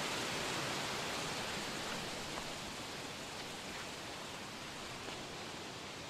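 A small waterfall rushing steadily down a cascade of bare rock slabs: a continuous hiss of falling water that grows a little fainter toward the end.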